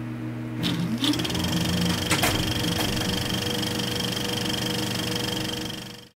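Film projector running, with a steady whirring clatter over a low hum. A rising whine comes as it speeds up about a second in, a few sharp clicks follow, and it cuts off suddenly near the end.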